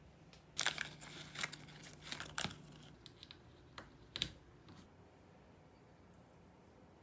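Crinkling and rustling, like something being unwrapped or handled, for about two seconds, then two short clicks; a faint low hum cuts out about three seconds in.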